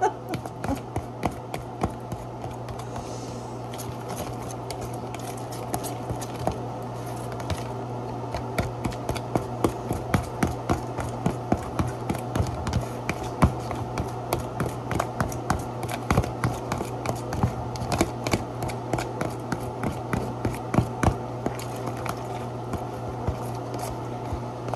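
Kitchen work: irregular clicks, taps and scrapes of utensils and containers over a steady low hum, the clicks growing busier about a third of the way in.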